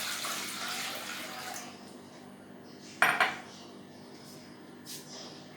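Water running into a metal pan for about a second and a half, then one sharp clank of a pot or utensil about three seconds in, followed by a couple of light clinks.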